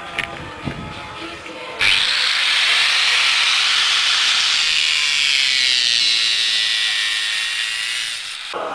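Angle grinder cutting metal, throwing sparks: a loud hissing whine whose pitch sags slightly under load. It starts abruptly about two seconds in and stops abruptly near the end.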